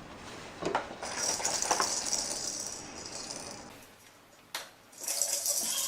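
A plastic baby toy rattling as it is shaken, its loose beads rattling in two spells with a few knocks of plastic in between.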